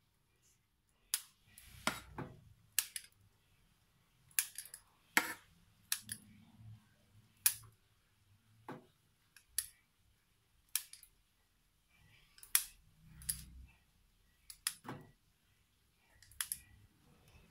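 Kitchen scissors snipping into soft bread dough, the blades closing with a sharp click about once a second, sometimes two in quick succession.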